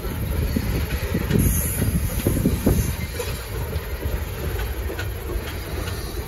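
Loaded coal cars of a freight train rolling past: a steady low rumble of steel wheels on rail, with scattered clicks at the rail joints. A brief high wheel squeal comes about a second and a half in.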